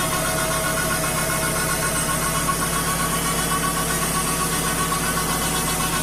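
Wood-Mizer LT35 portable bandsaw sawmill running steadily, its engine and band blade sawing a 14-inch kiln-dried red oak board on the resaw attachment. The blade is very dull and is burning the wood.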